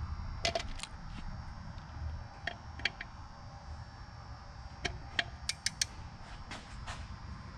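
Hand tools at work tightening bolts: a dozen or so short, sharp metallic clicks and clinks at irregular intervals, over a low steady hum.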